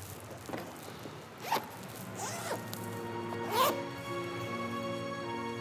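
A duffel bag's zipper pulled open in about four short strokes, the loudest about three and a half seconds in. Soft background music with held notes comes in about halfway.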